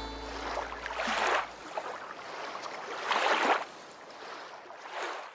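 Water swishing and sloshing in three swells, about a second in, a little past three seconds, and near the end.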